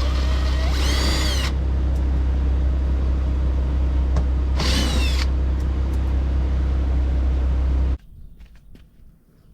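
Power tool whining in two short bursts, the first about a second long and the second about half a second, as it unscrews the bumper bolts. A steady loud low hum runs underneath and cuts off abruptly near the end.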